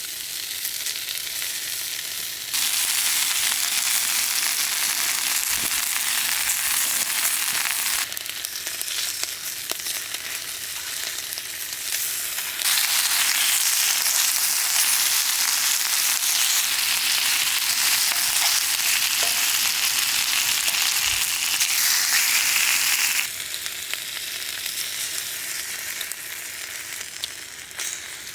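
Food sizzling as it fries in a hot pan, a steady hiss that turns suddenly louder twice, for a few seconds and then for about ten seconds.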